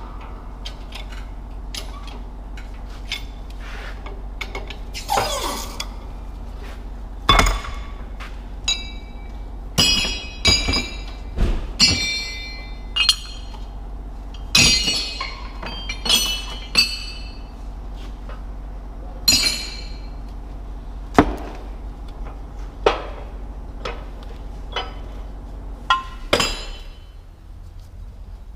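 Irregular metallic clinks and knocks of steel tools and parts being handled during a front wheel bearing job, some ringing, with a few harder hammer-like strikes. A steady low hum runs underneath and stops near the end.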